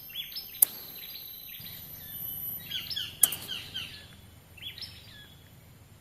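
A bird calling: a quick run of about five downward-slurred chirps a little under halfway in, then a shorter run of two notes later. Two sharp clicks, one about half a second in and one about three seconds in, and a faint high steady whine through the first half.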